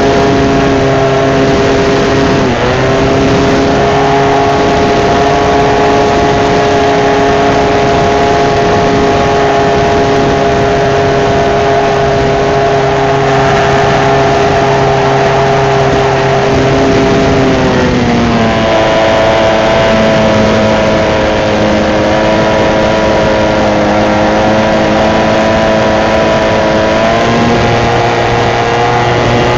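RC model Cessna 182's engine running in flight, heard from a camera on board the plane, over a constant rush of noise. Its pitch dips for a moment a few seconds in, drops to a lower throttle setting a little past halfway, and rises part of the way again near the end.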